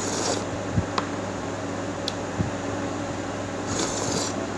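Eating rice porridge off a metal spoon: a slurp at the start and another near the end, with a few light clicks in between, over a steady background hum.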